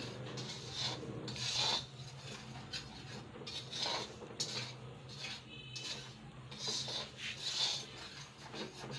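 Metal spatula scraping and stirring dry semolina around a kadhai, a gritty rasping stroke about once a second. The semolina is being roasted and has turned light brown.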